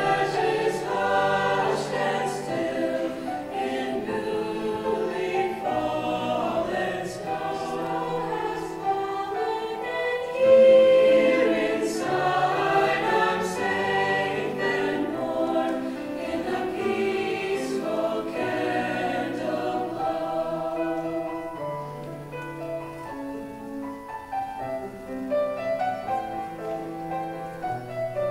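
A mixed high school choir singing a slow choral piece in held, sustained notes. The singing grows quieter and thinner about two-thirds of the way through.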